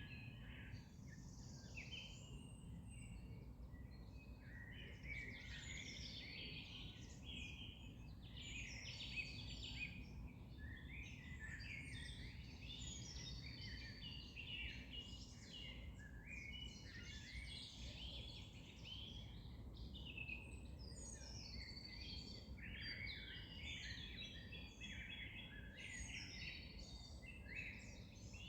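A chorus of songbirds singing, with many overlapping chirps and trills and no pause, over a faint steady low rumble.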